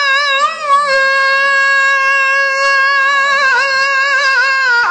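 A man singing an Islamic devotional hymn (inshad) unaccompanied, holding one long high note on the word 'as-samaa' (the sky). The note rises into place just after the start and ends in small wavering ornaments near the end.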